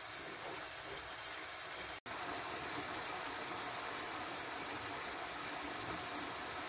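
Chicken, mushroom and tomato sauce simmering steadily in an open pan as the sauce reduces. The sound cuts out for an instant about two seconds in and resumes a little louder.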